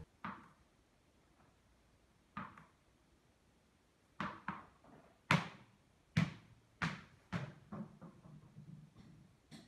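A series of sharp knocks: two lone ones early, then from about four seconds a run that comes quicker and fainter toward the end.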